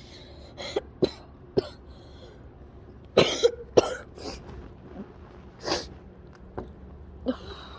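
A person coughing again and again in short, sudden coughs, with a louder fit of several coughs about three seconds in. It is the cough of someone who says he is already sick from sitting out in the cold.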